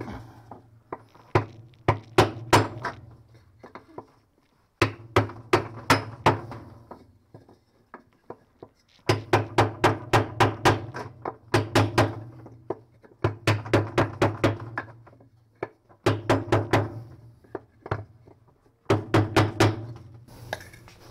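A hammer striking a block of wood to drive a new shaft seal into a Fisher & Paykel direct-drive washing machine's bearing housing. The blows come in about six bursts of quick, even taps, roughly three or four a second, with short pauses between.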